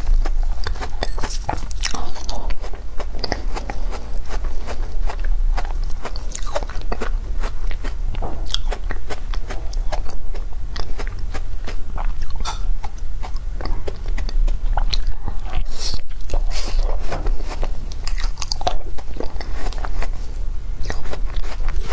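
Close-miked biting and chewing of foam ice: dense, irregular crunching and crackling throughout.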